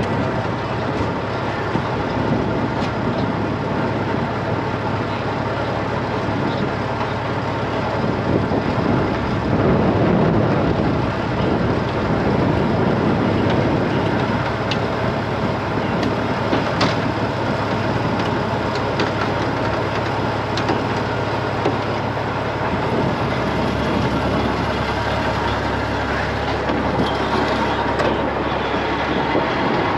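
Heavy-duty wrecker's diesel engine running steadily.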